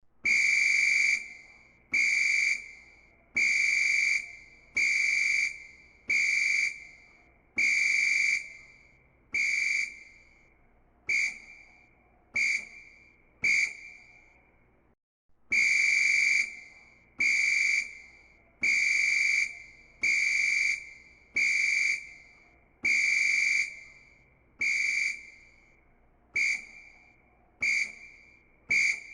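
Football referee's whistle blown in a long series of blasts of one steady high tone, about one every second and a half, some long and some short, each trailing off. There is a brief pause about halfway through.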